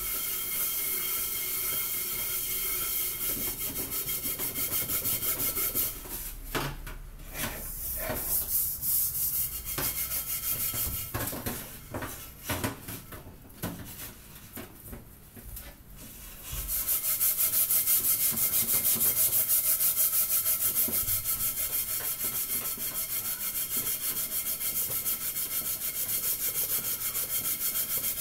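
Scouring pad scrubbing burnt-on black from a stainless steel pot in rapid back-and-forth strokes. About six seconds in the scrubbing stops, leaving scattered knocks and clicks. It resumes louder about seventeen seconds in.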